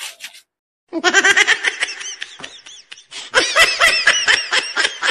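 Loud, high-pitched laughter in quick rhythmic bursts, starting about a second in after a short cut to silence.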